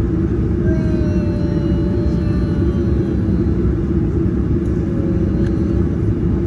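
Steady low rumble inside the cabin of a Boeing 737-800 moving along the taxiway, its CFM56 engines running at low power. A faint thin whine drifts slowly down in pitch about a second in.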